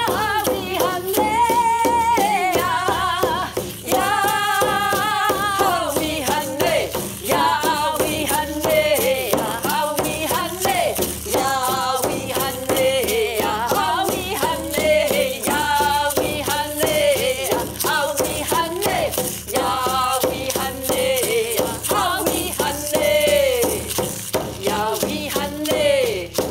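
Women singing a melodic song, accompanied by a shaken rattle that keeps a steady beat.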